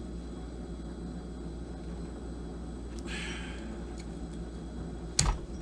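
Bench work on a chainsaw being taken apart: a short scrape about three seconds in, then a sharp click or knock near the end, over a steady low hum.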